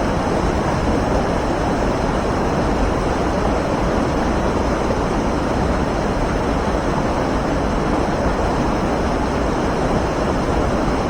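Waterfall: the steady, loud rush of water pouring over the edge.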